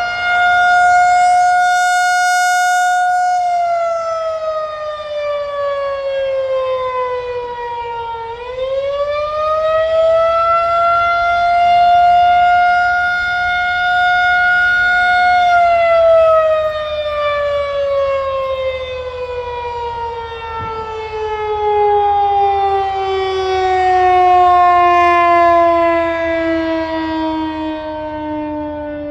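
Federal Signal 2001-130 rotating outdoor warning siren sounding the attack signal, a loud wailing tone rich in overtones. It holds high, slides down, climbs back up and holds again, then falls slowly lower near the end. Its loudness swells and fades as the rotating head sweeps past.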